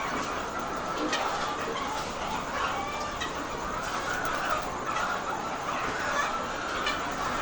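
A large flock of laying hens clucking together in a continuous, overlapping chatter.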